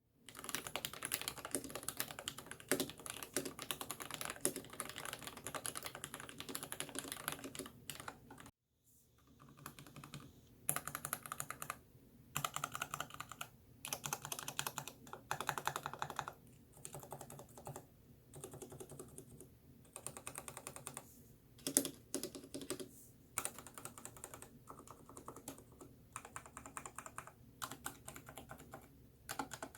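Ninja87 Alu mechanical keyboard with lubed Gateron Black linear switches and PBT Cherry-profile keycaps being typed on: fast, continuous keystrokes for about eight seconds, a brief break, then bursts of typing with short pauses between them.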